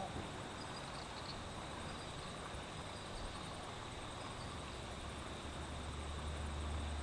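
Steady outdoor background hiss with faint insect chirring and a few faint high ticks about a second in. A low rumble comes in during the last second and a half.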